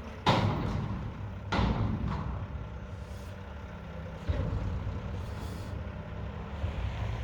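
Mack garbage truck's diesel engine running steadily, with two sudden loud air hisses about a third of a second and a second and a half in, and a weaker one about four seconds in, typical of the truck's air brakes.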